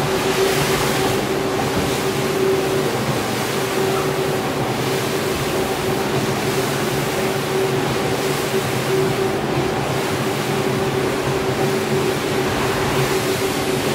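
Rotary floor scrubber with a shampoo brush scrubbing a wet, lathered rug. Its motor gives a steady, unchanging hum under the wet swish of the brush in the foam.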